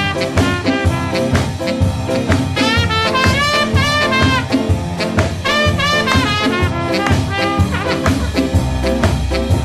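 Ska instrumental music: a brass horn section plays the melody over a steady, upbeat rhythm, with no vocals.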